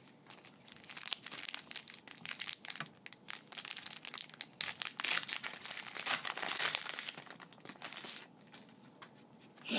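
The shiny foil wrapper of a Japanese Pokémon card booster pack crinkling and tearing as it is opened by hand; the crackling stops about eight seconds in.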